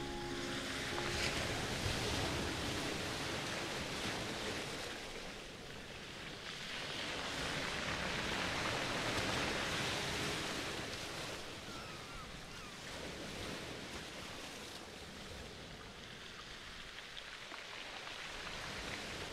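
Rushing water noise with no tones in it, swelling and fading slowly every several seconds, like surf or water churned by a pump.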